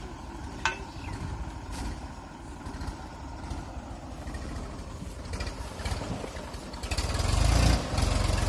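Tractor diesel engine idling steadily, with a short sharp click about two-thirds of a second in. The engine grows louder about seven seconds in.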